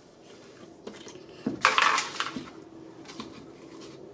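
Plastic handling sounds from a slime tub being opened: a short clatter and rustle of plastic about one and a half seconds in, with lighter knocks and crinkling around it.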